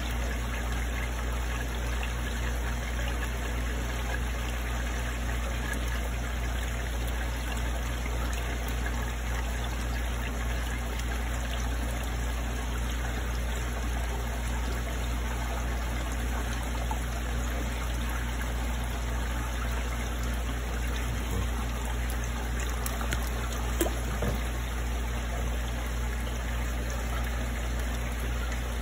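Water trickling steadily into a koi tank over a constant low hum, with one faint tick near the end.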